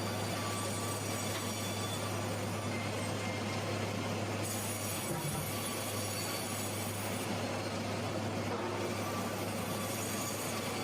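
Sawmill machinery running steadily: a constant low motor hum under a continuous noisy wash, with no breaks or strokes.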